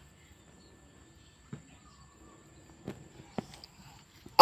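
Quiet room tone broken by three faint, short soft taps, about one and a half, three and three and a half seconds in.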